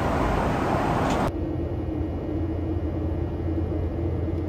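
Airliner cabin noise in flight: a steady rushing hiss of engines and airflow that switches abruptly, about a second in, to a lower, slightly quieter drone with a steady hum and deep rumble.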